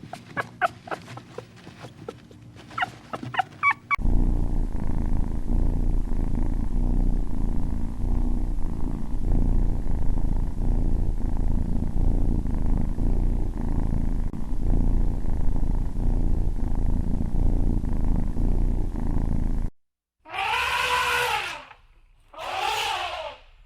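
A puppy whimpering in short rising cries for the first few seconds, then a kitten purring, a steady low rumbling purr lasting about fifteen seconds. After a brief break come two kitten meows of about a second each.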